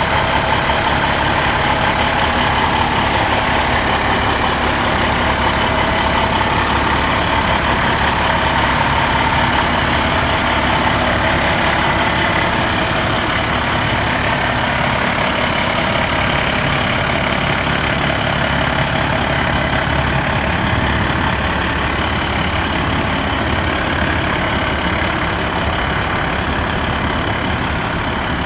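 2010 International 7500 crane truck's Maxxforce 10 diesel engine idling steadily.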